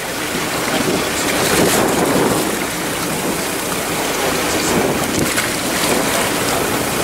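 Steady wind buffeting the microphone over water rushing and splashing along the side of a boat.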